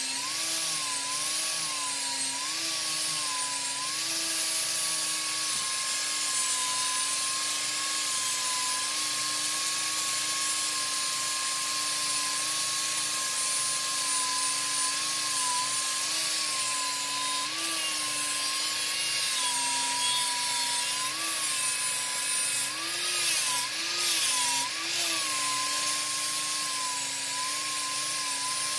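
Wood lathe running, its motor whine dipping and recovering in pitch several times as the tool loads the spinning wood, over a steady hiss of the tool cutting.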